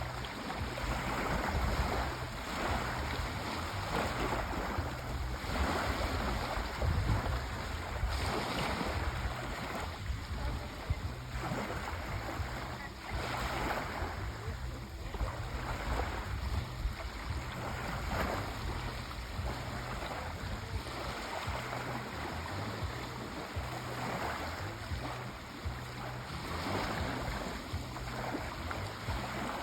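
Sea waves washing and breaking on a shore, a continuous rushing wash that swells and eases every second or two, with some wind on the microphone.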